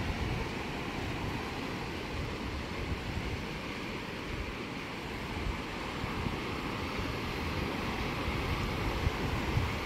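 Ocean surf washing steadily onto a sandy beach, with wind gusting on the microphone.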